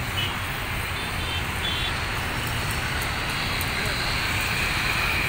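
Distant ATR 72 twin-turboprop airliner on the runway: a steady rush of engine and propeller noise that grows slowly louder, with a higher whine coming up about halfway through, typical of power being set for a takeoff roll.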